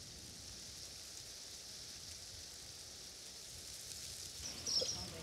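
Steady outdoor ambience: an even, high hiss with nothing distinct in it. Near the end the background changes and a few short high chirps stand out.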